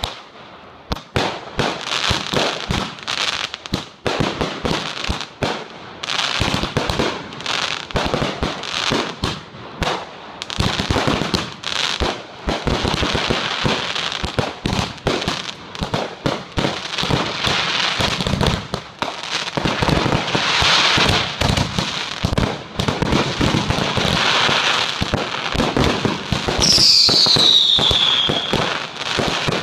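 Aerial fireworks going off in quick succession: a dense run of bangs, launch thumps and crackling bursts. Near the end a whistle falls in pitch for about a second.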